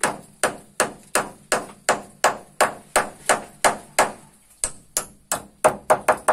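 Claw hammer driving a nail into a wooden roof beam, about three blows a second, with a short pause around four seconds in and then a quicker flurry of blows near the end.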